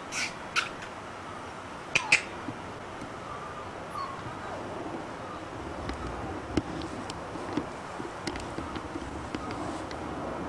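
Young puppies squeaking: a few short, high squeaks near the start and about two seconds in, then fainter whining with scattered small clicks.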